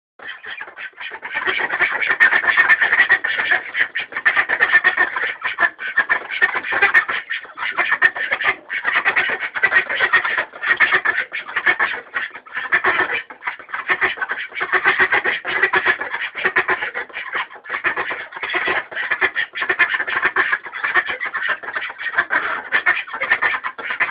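Domestic ducks quacking in a dense, continuous stream of rapid, overlapping calls, building up within the first second or two.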